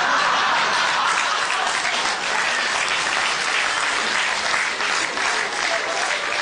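Audience applauding, a dense continuous clapping that holds steady throughout.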